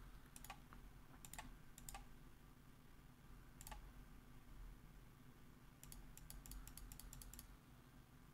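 Faint computer mouse and keyboard clicks: a few scattered clicks, then a quick run of about ten clicks around six to seven seconds in, over a low steady hum.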